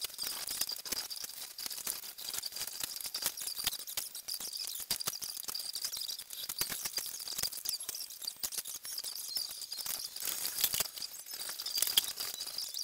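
Sounds of a person moving about and handling things at a table, played back sped up about twenty times: a fast, dense patter of clicks over a steady high whine, with a sharper click near the end.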